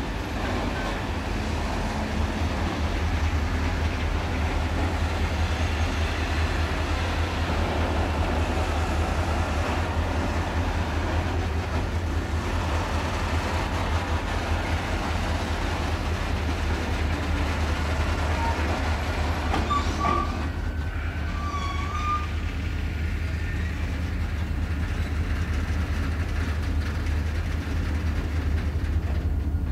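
Freight train of tank wagons rolling past on the rails, a steady low rumble that carries on unbroken.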